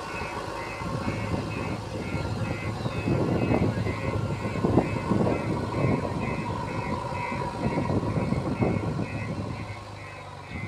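JCB 3DX backhoe loader's diesel engine working under load as the machine drives forward pushing loose soil with its front bucket, with rough scraping and crumbling of earth that swells from about a second in and eases near the end. A high beep repeats about twice a second over the engine.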